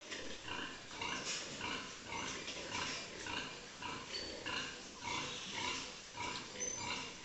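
Piglets calling in a continuous run of short, repeated squeals, about two to three a second.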